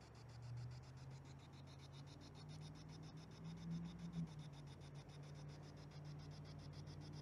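Faint sound of the Ghost Tube Vox app playing through a phone's speaker, imitating a spirit box: a low steady hum with a rapid, even flutter and no words coming through.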